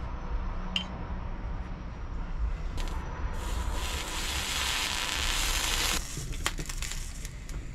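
Hot soldering iron sizzling on a fluxed came joint of a leaded glass panel as solder is melted in: a hiss that starts about three seconds in and stops sharply about six seconds in, followed by a few light clicks.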